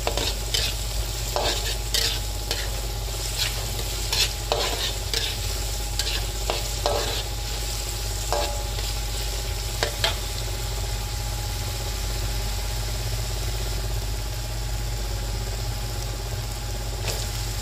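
Metal spatula scraping and knocking against a wok while diced carrots and spice paste fry in oil with a steady sizzle. The scraping is irregular and stops about ten seconds in, leaving the sizzle alone.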